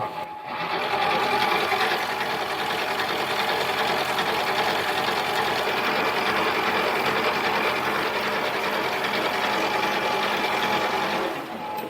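Mini lathe running: a steady motor and gear whine that comes up about half a second in and winds down near the end.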